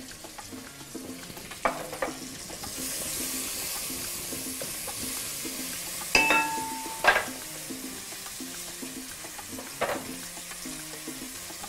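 Diced guanciale sizzling as it fries in its own rendered fat, with no oil, in a frying pan being stirred with a wooden spoon; the sizzle comes up about three seconds in. A few sharp knocks and clinks, one with a brief ring, stand out over it, with soft background music underneath.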